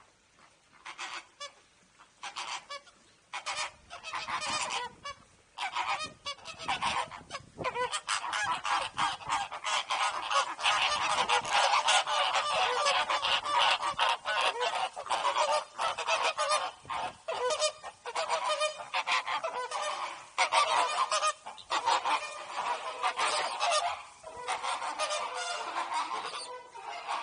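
Mixed flock of American, greater and Chilean flamingos honking: a few scattered calls at first, building after several seconds into a dense chorus of overlapping honks.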